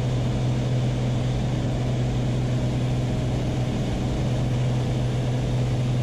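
Steady drone of a Beechcraft Baron B55's two six-cylinder Continental piston engines and propellers at climb power, heard inside the cockpit: a constant low hum with a wash of air noise over it.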